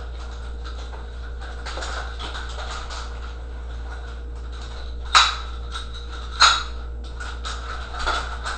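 Nunchucks being spun, with faint swishes and two sharp clacks about a second apart a little past halfway, over a steady low hum.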